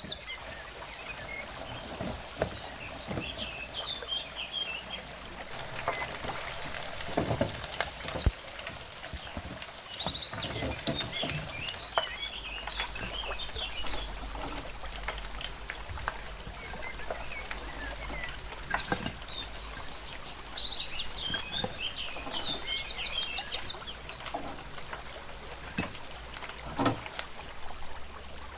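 Songbirds chirping and trilling over a steady background hiss, with scattered knocks and clicks.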